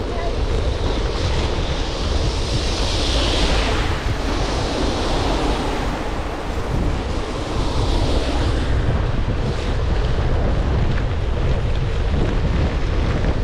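Wind buffeting an action camera's microphone on a moving bicycle ridden into a headwind, a steady low rumble mixed with the hiss of wet tyres on a rain-soaked path. The hiss swells twice, about three and eight seconds in.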